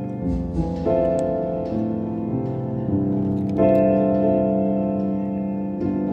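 Background keyboard music: held chords that change every two to three seconds.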